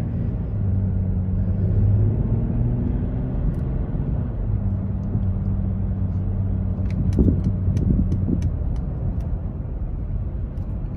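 Inside the cabin of a Mercedes GLS 400d, its 3.0-litre inline-six diesel gives a low, steady hum over tyre and road noise as the SUV accelerates to city speed and then holds it. A few faint clicks come near the end.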